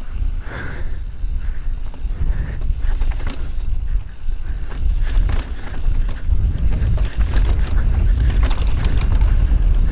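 Pivot Mach 6 aluminium mountain bike descending a dry, rocky dirt trail at speed: heavy wind buffeting on the camera microphone under tyres rolling over dirt and rock, with a running clatter of clicks and knocks from the bike. It gets louder about halfway through as the speed builds.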